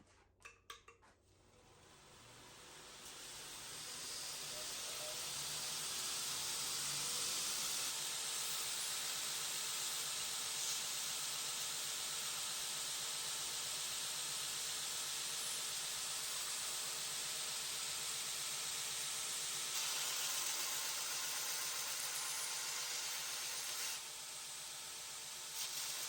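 Steady hissing rush of a gas forge burner, building up over the first few seconds and then holding even, after a few light clicks at the start.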